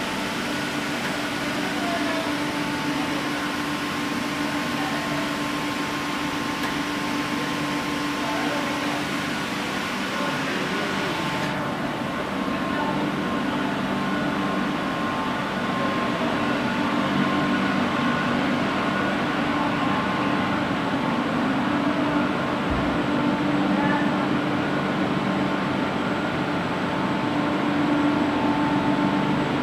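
Steady running noise of an HDPE pipe extrusion line: motors, pumps and fans of the haul-off and cooling tanks humming with a few steady tones over a hiss. The high hiss drops away abruptly about twelve seconds in.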